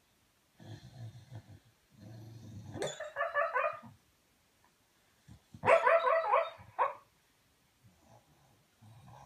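Sleeping, dreaming Staffordshire bull terrier: snoring breaths, then two runs of quick yipping sleep-barks, about three and six seconds in, the second louder.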